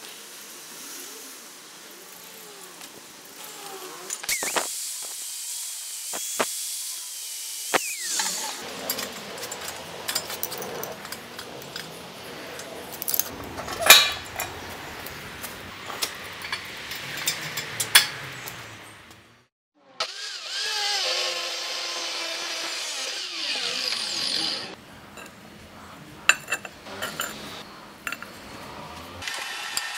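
Metalworking sounds on a steel stove: a power tool runs in two spells, whining up in pitch as it starts, and between them small steel parts clink and knock, with two sharp metal clanks.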